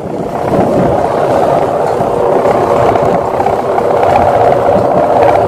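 Sendaren, the bow-shaped hummer strung across the top of a bapangan kite, droning steadily in the wind: a loud, mid-pitched hum with a fluttering texture.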